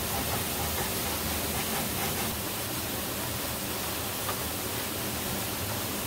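Steady, unbroken rush of a waterfall.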